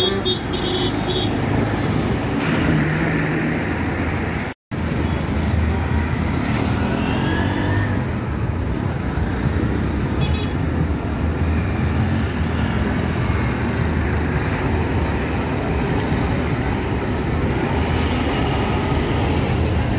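Busy street traffic dominated by the steady low rumble of a Tata city bus's engine running close by. There is a brief drop-out of all sound about four and a half seconds in.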